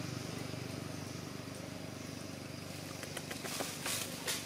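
Steady low hum of a running engine, with a few short scuffs and clicks near the end.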